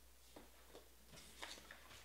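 Near silence: room tone with a few faint clicks and a brief rustle about a second and a half in.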